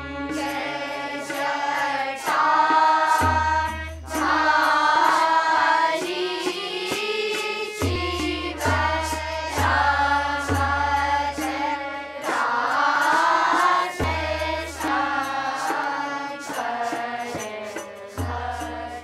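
A group of children and adults singing a devotional chant in unison to harmonium accompaniment, with low drum strokes every few seconds.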